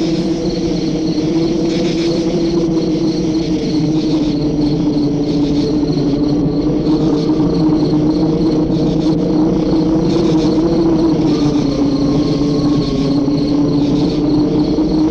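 A steady, low droning hum that slowly wavers in pitch, with a faint, rapidly pulsing high tone above it, like an eerie ambient sound effect.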